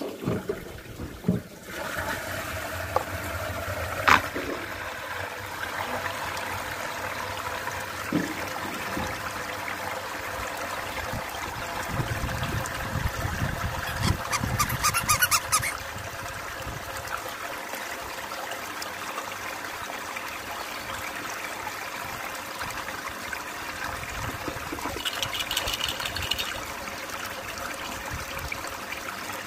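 Water swirling down a whirlpool in a plastic basin: a steady rushing, trickling sound that sets in about two seconds in, after a few splashes from a hand stirring the water. A short burst of high squeaking sounds about halfway through and again near the end.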